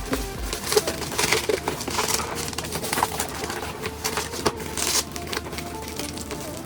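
Packaging being pulled and worked open by hand: irregular crackling, crunching and scraping with scattered clicks.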